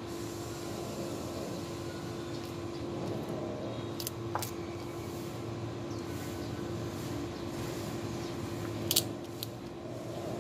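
Kittens chewing and crunching shrimp shells: a few sharp crackles, two about four seconds in and two louder ones near the end, over a steady low hum.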